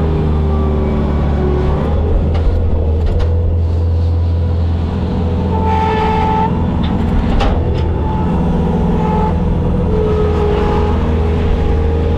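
Bobcat skid-steer loader's diesel engine running steadily, its pitch shifting up and down every few seconds as the machine works, with a few brief clicks and knocks.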